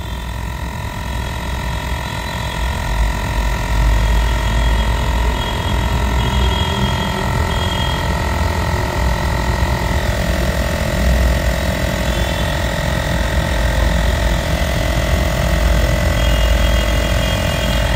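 Ather portable cordless tyre inflator's small compressor running steadily, a low drone under a steady whine, as it pumps a scooter tyre up toward its 3.0 bar set pressure.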